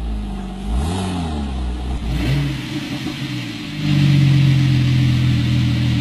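Car engine revving and accelerating. Its pitch dips and rises about a second in, climbs again about two seconds in, then holds steady and loud before cutting off suddenly at the end.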